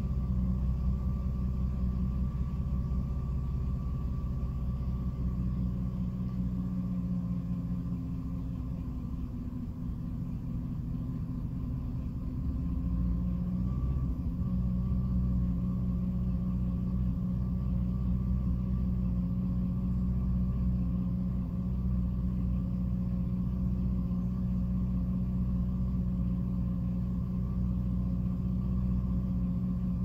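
2006 Jeep Liberty engine idling, heard from inside the cabin with no A/C load. About eight seconds in, the idle turns uneven and drops a little in level for several seconds, then settles back to a steady idle. This is the intermittent rough idle, the random stumble the owner is trying to diagnose.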